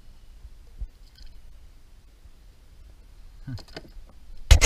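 Mostly quiet, with a few faint clicks and then a quick run of loud knocks near the end, as things are handled in a plastic fishing kayak.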